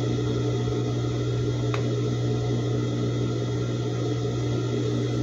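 A steady low mechanical hum, with a faint click about two seconds in.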